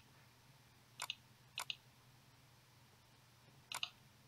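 Computer mouse right button clicked three times, each click a quick press-and-release double tick, over a faint low hum.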